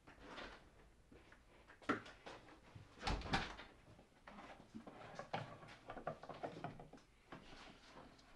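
A door latch clicks and the door bumps shut with a deep thump, followed by footsteps and small knocks and rustles of someone moving about and handling things.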